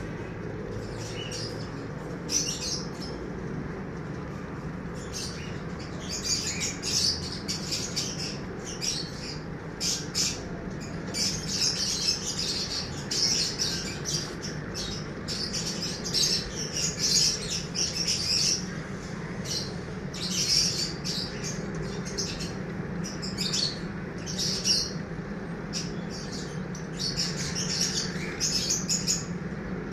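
Small birds chirping: many quick, high-pitched chirps in flurries, over a steady low hum.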